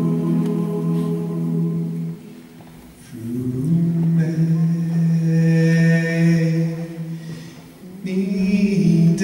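A cappella gospel singers holding long, steady chords, breaking off briefly about two seconds in and again just before the end; from about four seconds in a male lead voice sings over the held chords.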